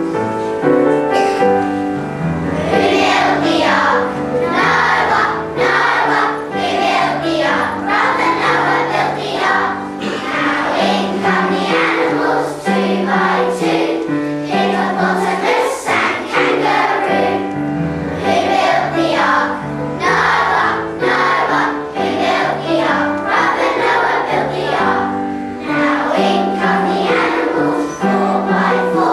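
A group of young children singing a song together, with musical accompaniment.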